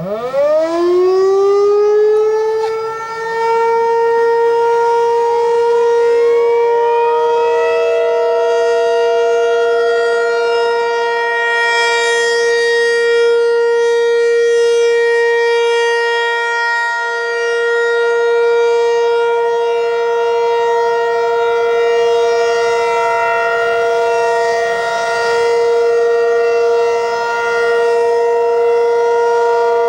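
Federal Signal 508 dual-tone outdoor warning siren winding up fast from silence and settling into a steady two-note chord, sounding the alert signal. Its level rises and falls gently as it runs. A second, more distant siren winds up more slowly a few seconds in and holds its own steady note underneath.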